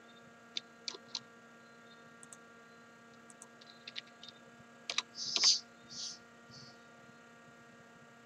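Steady electrical hum with scattered light clicks of a computer keyboard and mouse. Past the middle come a few short hisses, the loudest sounds here.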